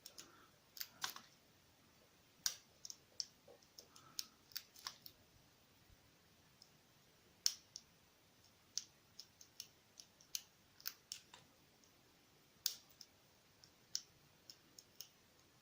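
Faint, irregular small metallic clicks and taps from lock picks working in a Kryptonite padlock, as the pins are felt and set one by one.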